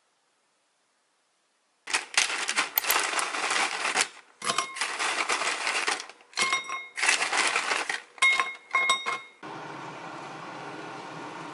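Dry nurungji (scorched rice crisps) crackling and rustling in a series of bursts as pieces are handled and dropped into a porcelain bowl, the bowl ringing briefly as they land. Near the end, water pours steadily from a kettle onto them.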